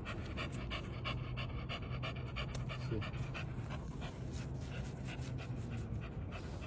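A dog panting rapidly, a run of quick, even breaths several times a second.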